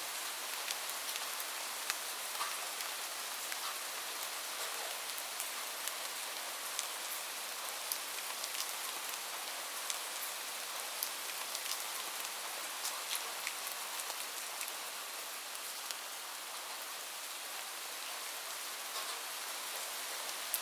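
Light, gentle rain falling steadily, a soft even hiss with scattered individual drops ticking.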